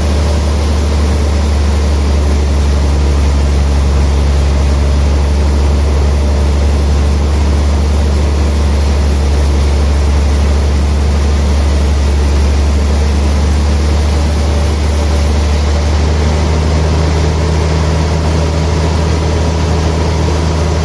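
Sawmill machinery running with a steady low drone that does not let up.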